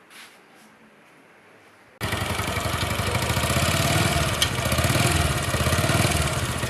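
Motorcycle engine idling through a faulty silencer, the sound coming in abruptly about two seconds in. The bad exhaust noise comes from a failed joint between the two parts of the silencer's inner pipe.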